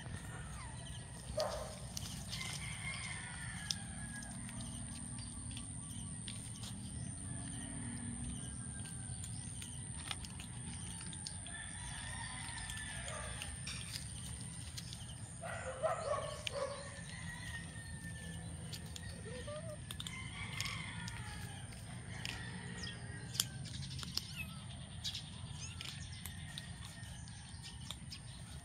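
Birds calling and chirping, with a few louder calls scattered through, over a steady low hum and a thin high-pitched whine.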